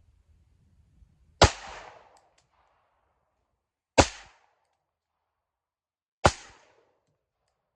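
Three shots from a Springfield Hellcat 9mm pistol fitted with a plain threaded barrel, fired slowly about two and a half seconds apart, each a sharp crack with a short echoing tail.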